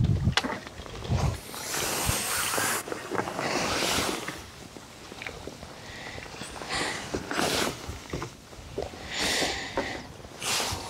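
A hooked carp being played in and landed: irregular rustles, knocks and splashes of the angler's handling and the landing net going into the water, in uneven bursts.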